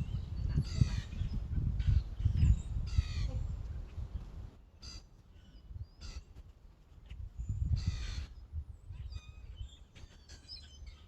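Birds calling outdoors: a few loud, harsh calls, about one, three and eight seconds in, with fainter ones between. Small chirps come near the end, over a low rumble.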